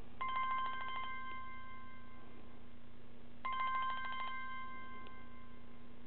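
Samsung Galaxy Core Prime's "Chime" ringtone playing twice from the phone's speaker. Each time a rapid ringing trill lasts about a second and then rings on as a held tone.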